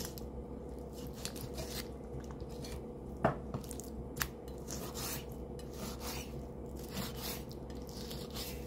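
Kitchen cooking sounds: scattered light clicks and scrapes of utensils against dishes or a pan, with a sharper knock about three seconds in, over a steady low hum.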